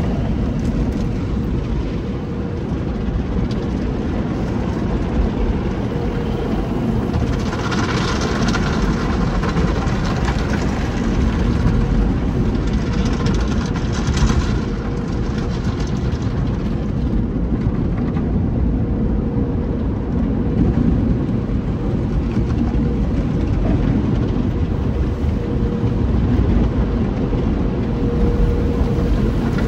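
Tommy's Express tunnel car wash heard from inside the car: a steady low rumble of the wash machinery and cloth wraps working over the body, with a faint steady hum. Two stretches of louder hiss come about eight and thirteen seconds in.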